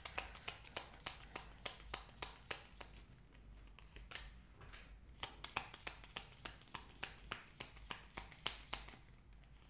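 A deck of tarot cards shuffled in the hands: a run of crisp card snaps, about three a second, with a short lull midway.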